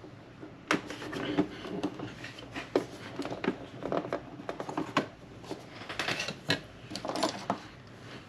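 Irregular small clicks, taps and scrapes of hands handling a cassette recorder's case and parts, with a few sharper knocks among them.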